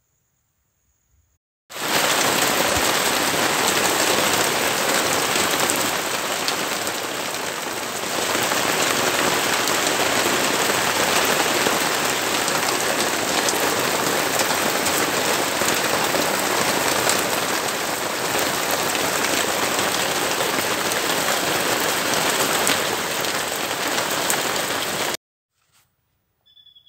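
Steady rain falling on a pine forest. It comes in abruptly about two seconds in and cuts off abruptly shortly before the end.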